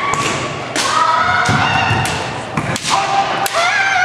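Kendo fencers shouting long, held kiai yells that rise and then hold, mixed with several sharp clacks and thuds of bamboo shinai strikes and stamping feet on a wooden gym floor.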